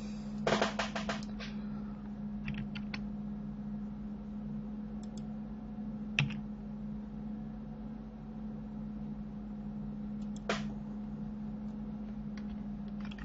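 Computer keyboard keys clicking as Blender shortcuts are pressed: a quick run of clicks near the start, a few more about three seconds in, then single clicks about six and ten seconds in, over a steady low hum.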